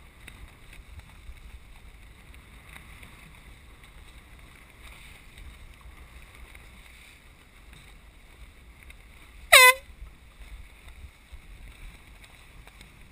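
One short blast from a hand-held air horn, sliding up in pitch at its start, sounded as a dinghy crosses the finish line in a sailing race. Wind and water noise run beneath it.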